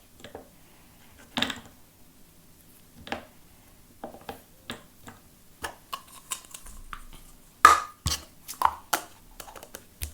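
Scattered light clicks and taps of plastic Play-Doh tubs and a lolly mould being handled while dough is pressed in. The knocks grow more frequent and louder near the end.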